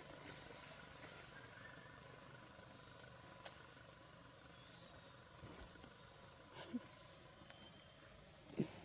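Steady high-pitched drone of insects (crickets or cicadas), broken by a few brief sharp sounds, the loudest about six seconds in and another near the end.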